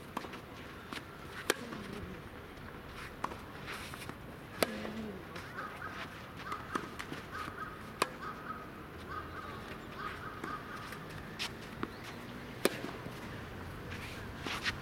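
Tennis ball struck by rackets during a rally: sharp pops every three to four seconds, with fainter knocks between them from the far player's shots and the ball's bounces.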